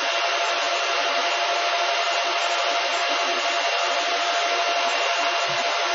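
Silverfish 28MH Litecoin ASIC miner running, its cooling fans making a loud, steady rushing noise with a faint steady whine in it, measured at about 63 dB.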